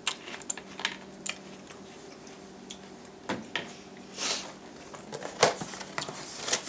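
Metal spoon clicking and scraping against a cereal bowl, a dozen or so irregular light clicks while picking out the drier pieces, over a low steady hum.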